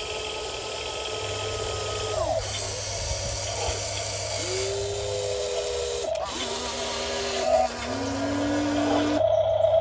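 Small electric motors of a remote-control toy excavator whining, the pitch falling about two seconds in and then shifting between a few levels as the motors start and stop.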